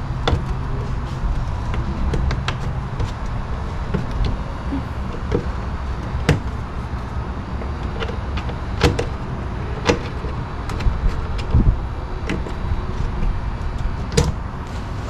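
Irregular sharp clicks and knocks of hand tools and plastic trim clips being pried out to remove a trim panel at a car's wheel arch, over a steady low rumble.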